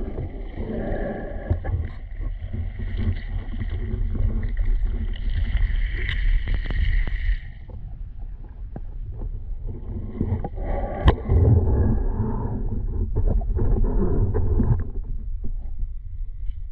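Water sloshing and moving in the river, with a sharp knock about eleven seconds in.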